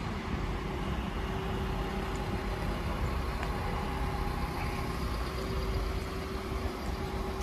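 Renault Master van's 2.3-litre diesel engine idling steadily: a low rumble with a faint steady hum.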